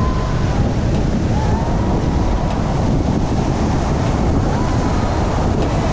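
Steady rushing noise with a heavy low rumble, typical of wind buffeting the microphone outdoors.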